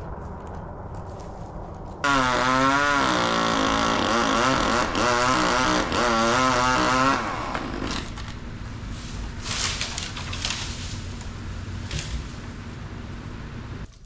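A small engine running, revved up and down over and over for about five seconds, then settling back to a lower steady run with a few light knocks.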